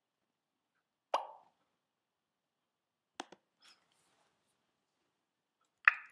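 A short pop about a second in, two quick sharp clicks around three seconds in, and another pop with clicks near the end, with silence between: computer clicks and pop sounds as a web video player is started and put into full screen.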